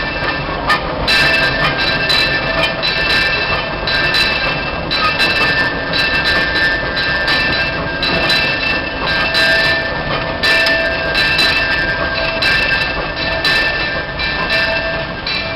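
Disneyland Railroad train running on its track: a steady rolling rumble with high-pitched wheel squeal that comes and goes in stretches.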